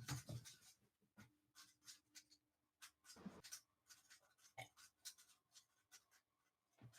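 Near silence, with faint scattered clicks and a short soft rustle about three seconds in.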